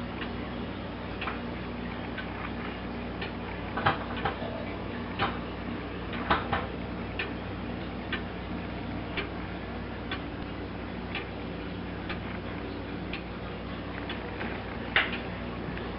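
Antique eight-day weight-driven tall case clock by Philip Glasco of Dublin ticking steadily, about one tick a second. A few louder knocks fall among the ticks.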